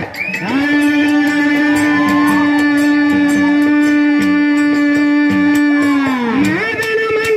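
Dollina Pada folk singing: a single voice holds one long high note for about six seconds, then slides down and up to a higher note near the end, with light regular clicks of a rhythm instrument behind it.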